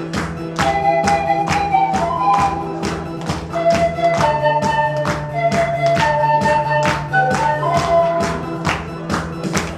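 Pan flute ensemble playing a slow melody in held notes over an accompaniment with a steady, tapping percussion beat.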